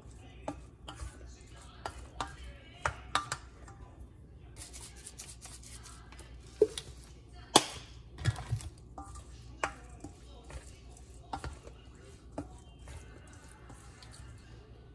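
Wooden spoon stirring pesto pasta in a stainless steel mixing bowl: irregular knocks and scrapes of wood on metal, with two sharper knocks a little past the middle.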